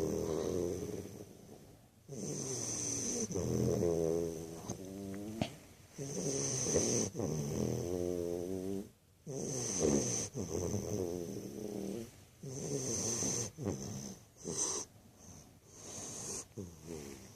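American bulldog puppy snoring in a regular rhythm, breaths a couple of seconds apart, each snore a droning sound that wavers in pitch, with a hiss on some of the breaths.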